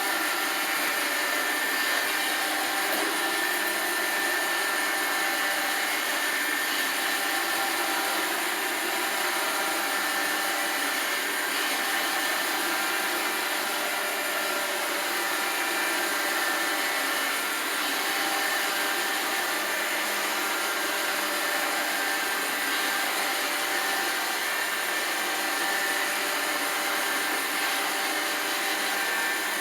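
iRobot Roomba 780 robot vacuum running steadily while cleaning: an even motor and suction hum with a few steady whining tones, no change in level.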